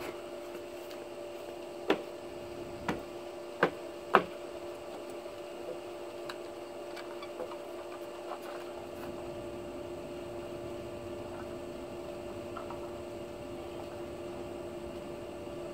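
A steady hum with two held tones runs throughout. Four sharp knocks come in the first few seconds, the last the loudest, followed by a few faint ticks.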